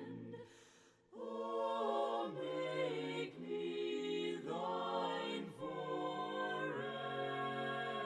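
A cappella choir singing a slow hymn in several parts, with chords held and changing about once a second. There is a brief pause about a second in.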